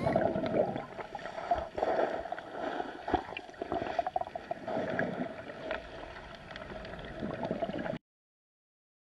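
Flowing river water recorded underwater: a steady gurgling rush with scattered sharp clicks, cutting off abruptly about eight seconds in.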